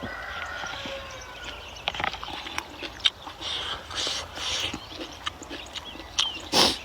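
Close-miked eating sounds: wet chewing, lip smacks and clicks of a mouthful of food, with a short loud rush of noise near the end.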